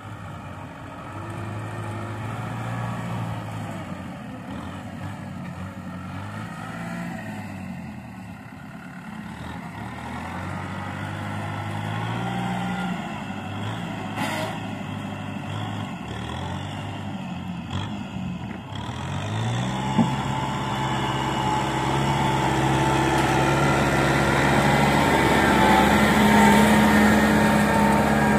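Kubota M6040 tractor's diesel engine working hard in wet paddy mud. Its pitch rises and falls repeatedly as the throttle and load change, then it runs steady and louder for the last several seconds.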